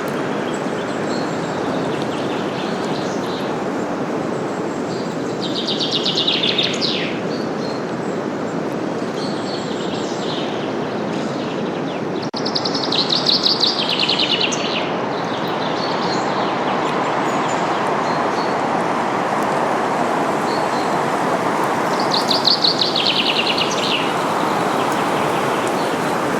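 Steady rush of wind through forest leaves, with a small songbird singing three short, rapid trilled phrases a few seconds apart, each sliding down in pitch, and a few faint chirps between them.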